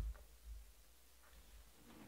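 A sharp, deep thump on the table, then a softer one about half a second later, and a few faint light clicks near the end: the sounds of cards being handled and set down on a tabletop during sorting.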